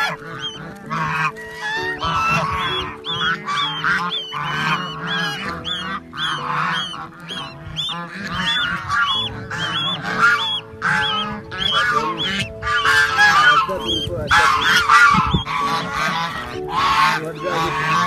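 A flock of domestic geese honking, with many short calls overlapping, and goslings peeping in a run of repeated high calls. Steady background music plays underneath.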